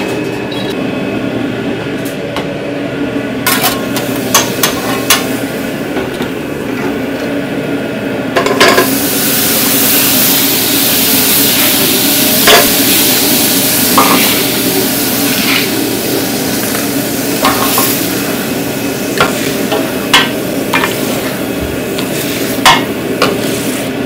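Metal utensil knocking and scraping in a pan, then food starting to sizzle loudly on the hot surface about eight seconds in, with more knocks of stirring over the sizzle and a steady hum underneath.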